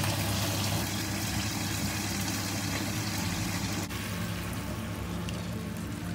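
Soy-and-vinegar adobo marinade being poured from a bowl into a hot frying pan of browned chicken drumsticks, liquid splashing into the sizzling pan, over a steady low hum.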